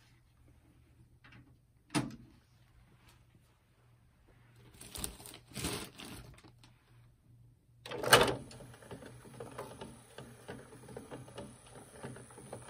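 Clicks, rustling and knocks from handling a vintage Aiwa NSX-350M bookshelf stereo as it is switched back on. A loud click comes about eight seconds in, and after it a faint steady high-pitched tone holds until near the end, over a low steady hum.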